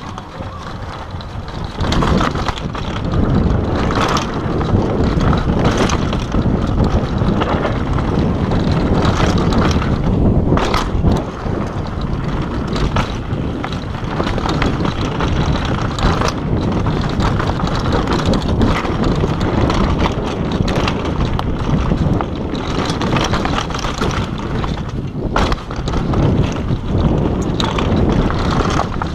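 Downhill mountain bike ridden fast over a dirt and root trail: heavy wind rush on the camera's microphone, knobby tyres rumbling on the dirt, and the bike rattling with frequent sharp knocks over bumps.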